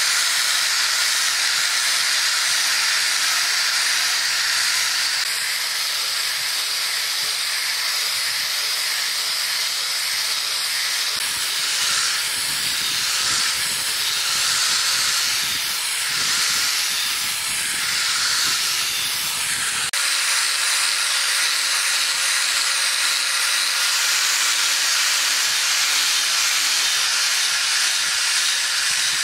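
Handheld electric angle grinder with a foam-backed sanding pad sanding a wooden knife handle: a steady, high hiss of the motor and abrasive on wood. A wavering lower rumble joins in from about 11 to 20 seconds in, and the sound changes abruptly at about 20 seconds.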